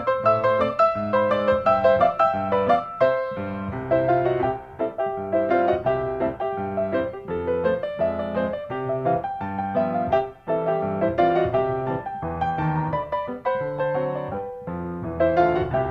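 Background piano music, a quick run of short notes over a steady bass line.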